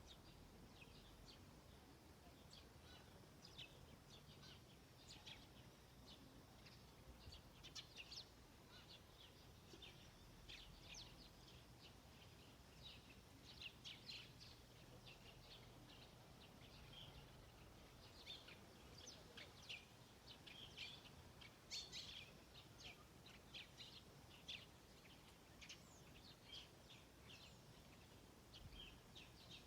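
Small birds chirping: many short, quick, high chirps overlapping in a busy run, faint against a low steady background hum.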